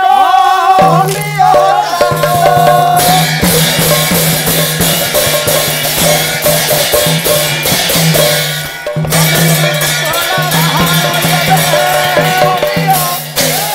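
Pala ensemble music: a melody over a steady low drone, with drum and cymbals keeping a busy rhythm. The music drops out briefly about nine seconds in.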